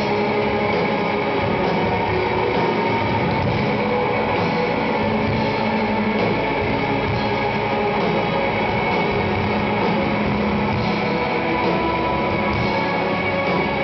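Post-rock band playing live, heard from within the crowd: layered electric guitars holding sustained notes, at a steady loudness.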